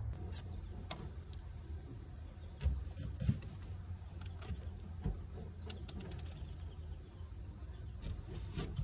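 A rabbit nibbling a grass stem, heard as scattered faint crisp clicks, over a steady low rumble, with two soft thumps a little before the middle.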